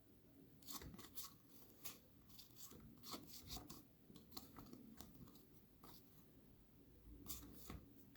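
Faint, scattered rubbing and light taps of trading cards and a foil pack being handled and slid against each other.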